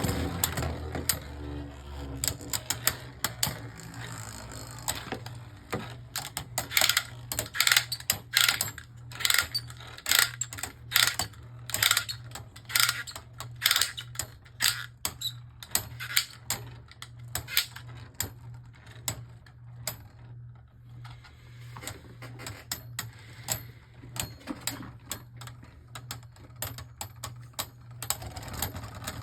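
Two Beyblade Burst tops, Z Achilles and Fafnir, spinning and colliding in a plastic stadium. A fast, irregular run of sharp plastic clicks and clacks over a steady low hum, with the hits thinning out in the second half.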